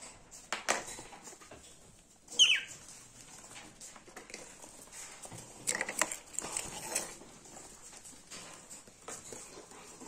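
A budgerigar gives one short, high call that falls in pitch, about two seconds in and the loudest sound here. Around it come soft rustling and handling clicks, busiest near the middle.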